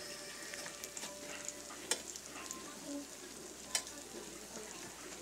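Cheese sticks shallow-frying in hot oil in a wok: a steady sizzle with scattered crackles and two sharper pops.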